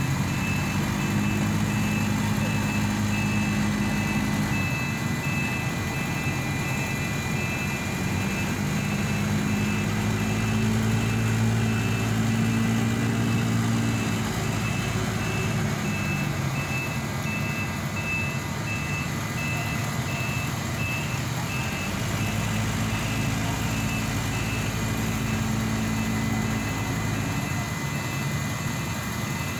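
Heavy vehicle engine running, swelling and easing in pitch three times, with a reversing alarm beeping at a steady, quick pace through most of it.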